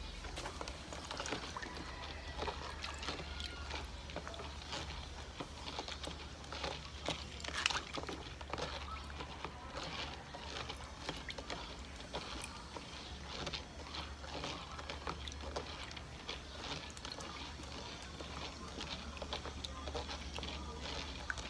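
Fingers rubbing and stirring black pepper seeds in water inside a plastic colander, a continuous run of small irregular clicks and swishes as the pulp is scrubbed off the seeds.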